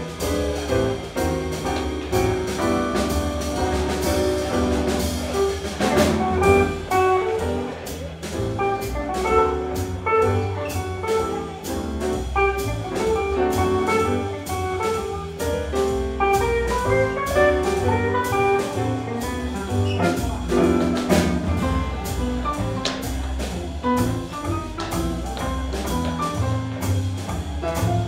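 Live swing jazz band playing an instrumental passage: piano, archtop electric guitar, upright double bass and drum kit, with the drums keeping a steady swing beat on the cymbals under a running melody line.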